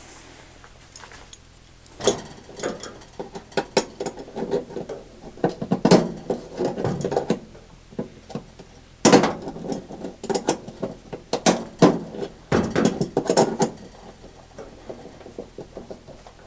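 Pliers working the hose clamp on a front-load washer's drain pump: irregular metal clicks, scrapes and knocks against the clamp and the plastic pump housing, in bursts from about two seconds in until near the end.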